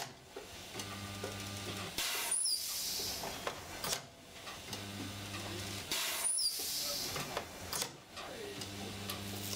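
Resistance spot welder with long copper electrode arms welding the car's sill and floor panels together. Three welds, each a steady low hum of about a second, with clicks between.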